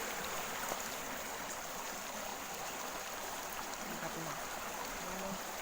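Steady rush of flowing water, an even hiss with no distinct splashes.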